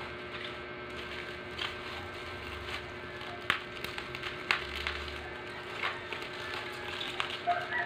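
Plastic packaging crinkling and crackling as a parcel is unwrapped by hand, with scattered sharp clicks, over a faint steady hum.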